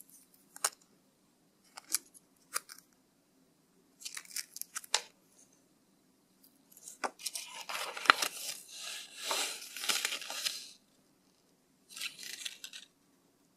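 Sharp little clicks and taps of a plastic keychain figure and its metal ball chain being handled, then several seconds of crinkling rustle from packaging being handled, and a shorter rustle near the end.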